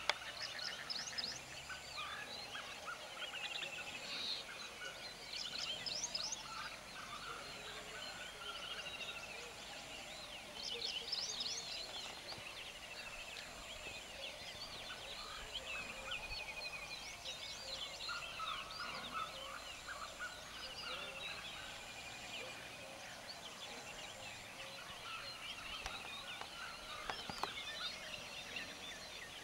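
Chorus of many wild birds calling: overlapping chirps, short trills and repeated descending calls, steady throughout.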